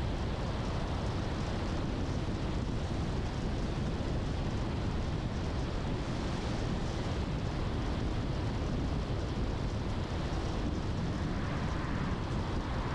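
Steady rumble and hiss of a car driving along a road: tyre and wind noise with no distinct events.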